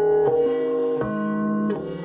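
Music played back through a desktop studio monitor speaker and recorded in the room: a plucked string instrument whose held notes change about every three quarters of a second.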